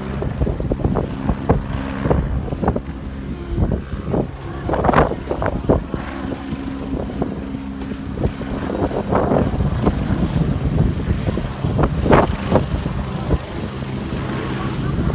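Helicopter running, a steady drone of low tones, with gusts of wind buffeting the microphone several times.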